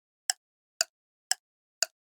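Countdown timer sound effect ticking: four short, sharp ticks evenly spaced about two a second, with silence between.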